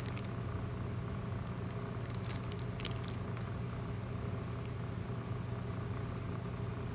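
Pokémon trading cards and their foil pack wrapper being handled, with a short run of crinkly clicks about two to three seconds in. Under it runs a steady low hum.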